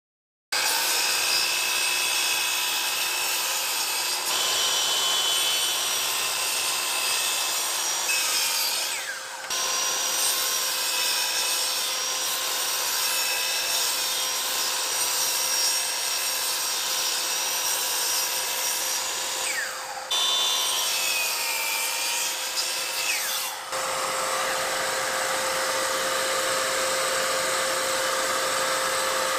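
Miter saw running and cutting through a stack of 9 mm Baltic birch plywood pieces: a steady motor whine over the rasp of the blade in the wood. Twice the whine drops in pitch and the level dips briefly, and near the end the sound turns to a steadier hum.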